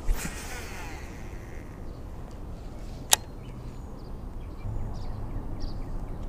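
A cast with a baitcasting reel: a short whoosh, then the spool whirring as line pays out, its pitch falling as it slows over about a second. About three seconds in, one sharp click.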